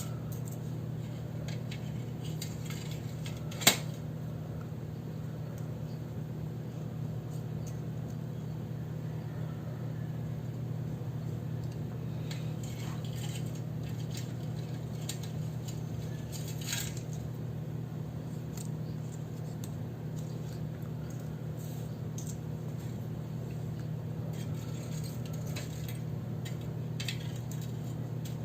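Small objects handled on a desk during journaling: one sharp click of a small hard object about four seconds in, then scattered light clicks and scrapes. A steady low hum runs underneath.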